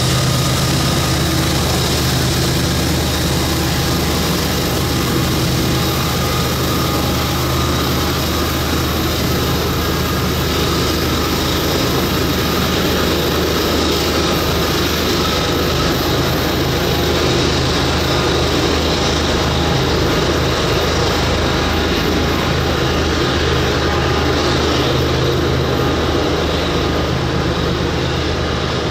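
Diesel-electric freight locomotives working under load with a steady low engine drone, over the continuous rumble of a loaded coal train's cars. The high hiss eases off about two-thirds of the way through.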